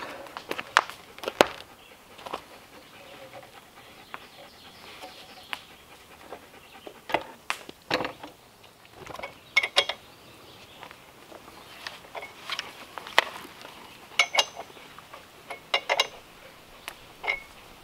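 Metal clicks, clinks and knocks as an aluminium chainsaw-mill frame is fitted and clamped onto a Husqvarna chainsaw's bar. The knocks are irregular and scattered, some ringing briefly, with a dog panting nearby.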